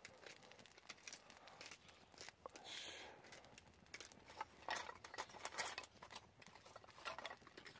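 Faint crackling and popping of thin wooden kindling burning in an open fire stand. The irregular pops grow thicker and louder about halfway through.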